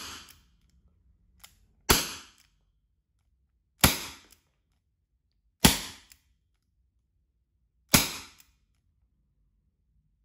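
Wingun 2.5-inch gas-powered BB revolver firing: a sharp shot right at the start, then four more about two seconds apart, each with a short echo.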